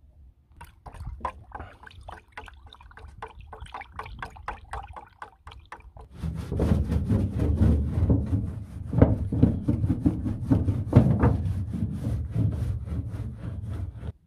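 Paintbrush strokes on wooden boards: quick rhythmic swishing of a brush spreading wet paint, about four strokes a second, getting louder about six seconds in.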